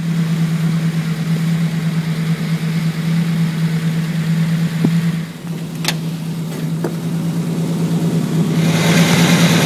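Triumph GT6's six-cylinder engine running at a steady idle, with a short dip a little after five seconds and growing louder near the end.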